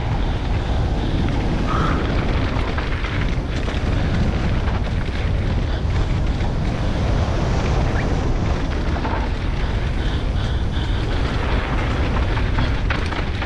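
Enduro motorcycle ridden on a rough trail, heard through an onboard camera: the engine running under load mixed with heavy wind and buffeting noise, a dense steady rumble throughout.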